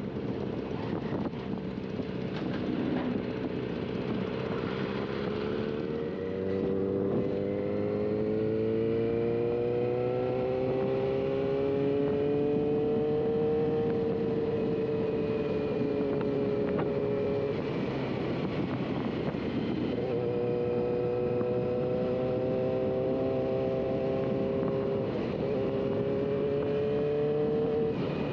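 Motorcycle engine running on the move over a steady rushing noise. Its note climbs for several seconds as it accelerates, breaks off for a couple of seconds a little past halfway, then comes back and dips briefly near the end.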